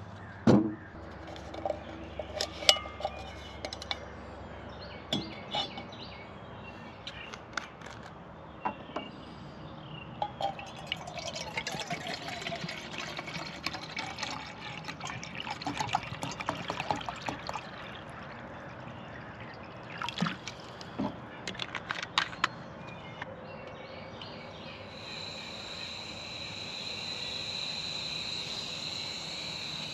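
Clicks and knocks of a backpacking stove being screwed onto a gas canister, then water poured from a plastic bottle into a metal camp pot, the pitch rising as the pot fills. Near the end the canister stove's burner comes on with a steady hiss.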